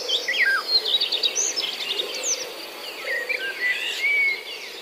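Birds chirping and calling: many short whistled notes, trills and quick up-and-down glides, over a steady high insect buzz that fades out after about three seconds.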